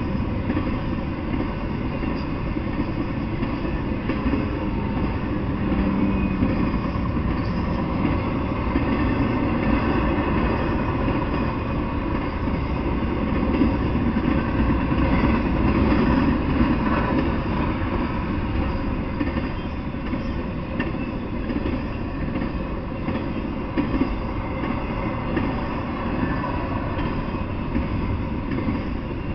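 Intermodal freight train rolling past: the steady rumble of trailer-carrying flatcars and double-stack container cars on the rails, with a few brief sharp knocks.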